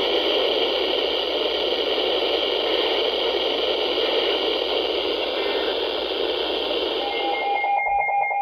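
Steady static hiss from a weather radio receiver. Near the end the hiss cuts off and a steady electronic tone with a rapid buzzing pattern begins, the start of an incoming alert transmission.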